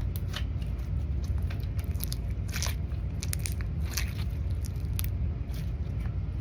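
Bubbly slime giving off a sizzling crackle of small, irregular pops as its air bubbles burst.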